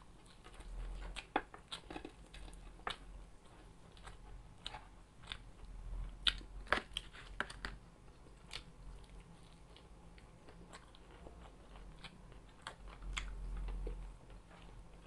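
Close-miked eating: a person biting and chewing crunchy food, with irregular sharp crunches that come thickest about six to seven and a half seconds in.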